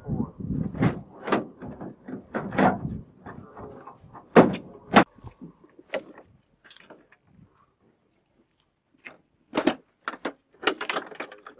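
Handling noise on the HH-60G Pave Hawk's metal fittings: a run of irregular knocks, clicks and rattles, busiest in the first five seconds, then a few sharper knocks near the end.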